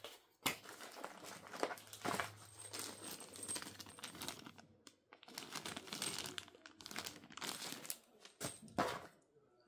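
Clear plastic accessory bag crinkling as it is handled, in repeated rustling bursts, with a couple of sharp clicks.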